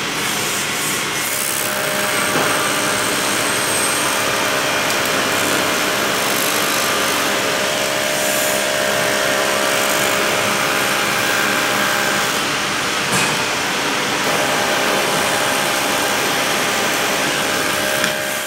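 TIG welding arc hissing and buzzing steadily, with a few faint steady tones over the hiss.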